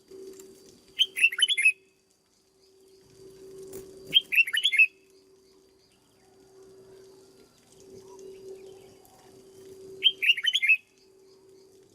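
Red-whiskered bulbul singing three short phrases of quick, clear notes, the first two about three seconds apart and the third after a longer pause.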